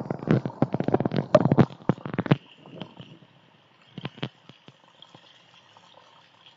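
Heavy storm rain striking a security camera and its housing: a dense wash of noise crowded with sharp drop impacts, which cuts off suddenly about two and a half seconds in, leaving a faint hiss with a couple of clicks.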